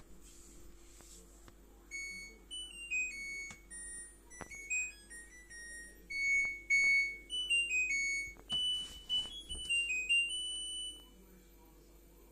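Washing machine's end-of-cycle melody: a tune of electronic beeps lasting about nine seconds, signalling that the drum-cleaning cycle has finished.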